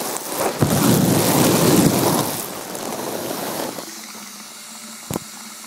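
Water rushing and splashing directly over a phone's microphone, a loud crackling wash that drops a little under four seconds in to a quieter steady hiss with a low hum. One sharp knock about five seconds in.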